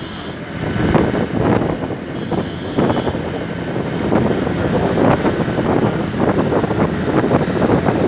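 Motorbike riding at speed: wind buffeting the microphone in irregular surges, over the bike's engine and road noise.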